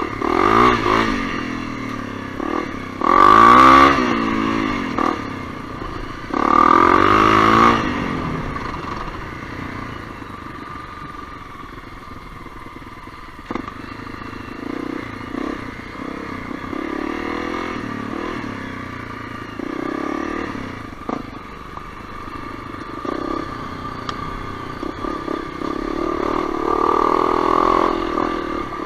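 Honda CRF250L's single-cylinder four-stroke engine revving up in three loud bursts of rising pitch in the first eight seconds, then running at lower, uneven throttle with further swells. A few sharp knocks come through along the way.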